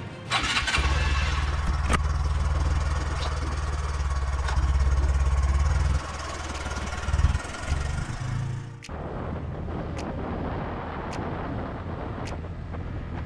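Small Honda motorcycle engine starting up a moment in and then idling with a steady low hum; around six seconds the sound turns unsteady with a few short revs. From about nine seconds the steadier rush of engine and road noise while riding takes over.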